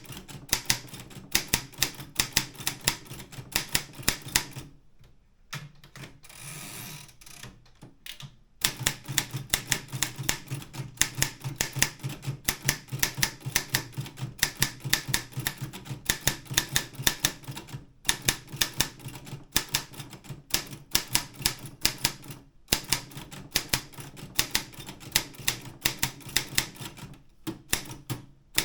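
Optima M12 manual typewriter being typed on steadily, its type bars striking the platen several times a second. About five seconds in the typing pauses for a few seconds, broken by a short rattle.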